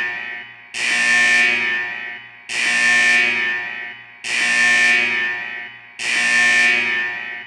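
Warning-alarm sound effect: a ringing, buzzer-like alarm tone sounds four times, about every 1.8 s. Each time it starts suddenly and fades away over about a second and a half.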